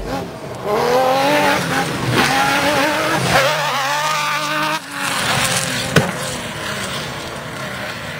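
Comp safari buggy's engine revving hard, its pitch rising and falling as the car slides through a gravel bend, then running more steadily and fading as it pulls away. A single sharp click comes about six seconds in.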